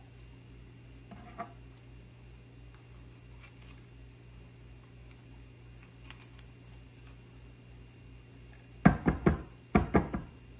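Sharp knocks on a wooden cutting board as a bell pepper is cut and cored: about six in two quick groups near the end, over a faint steady hum.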